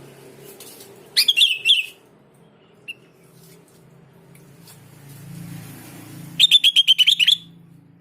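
Sooty-headed bulbul (kutilang) singing two short, rapid chattering phrases of sharp notes, one about a second in and one near the end, with a single faint chirp between them. A low steady hum runs underneath.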